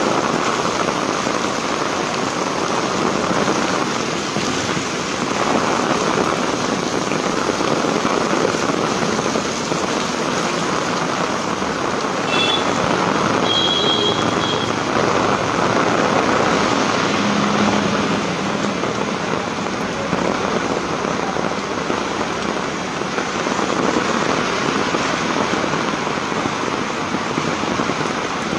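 Heavy rain pouring steadily onto a street and pavement, a continuous loud hiss, with a car's tyres swishing past on the flooded road about halfway through.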